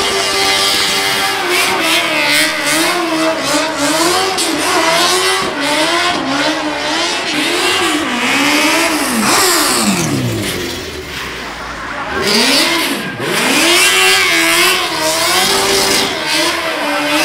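Car engine revved hard in quick rises and falls while the car spins donuts in a burnout. About nine seconds in the revs drop away low, then climb again into more rapid revving.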